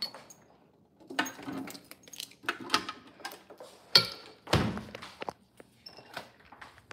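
A handheld phone being moved about, picking up a series of knocks and thuds, with a sharp click about four seconds in and the loudest thud just after it.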